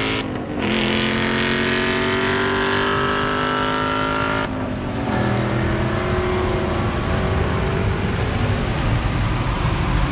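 Dodge Charger's HEMI V8 at full throttle, heard from inside the cabin, its pitch climbing steadily through the gears with upshifts just after the start and again about four and a half seconds in.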